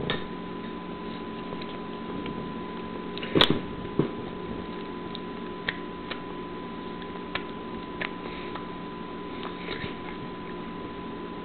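A steady low hum with a thin high tone running through it, and a few short irregular clicks or smacks, the loudest about three and a half seconds in.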